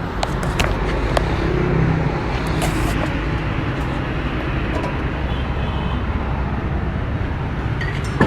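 Petrol engine of a walk-behind concrete saw running steadily, with a few sharp clicks in the first second or so.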